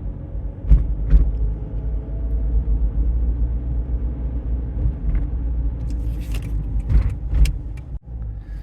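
Steady low rumble of a car driving, heard from inside the cabin, with a few short knocks about a second in and again near the end.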